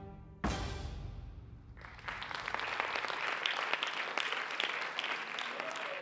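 Dance music ends on one sharp, loud hit that rings away, and about two seconds in an audience breaks into steady applause.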